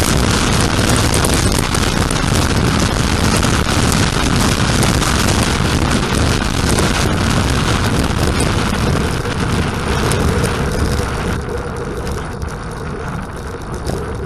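Wind rushing over the microphone of a camera mounted on a track bicycle riding the velodrome at speed, a loud, steady roar of noise. The hissing top end fades about eleven seconds in as the bike slows.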